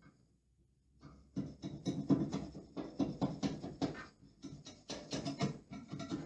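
Quick rubbing and brushing strokes against freshly pasted lining paper on a wall, several a second, starting about a second in with a brief pause in the middle.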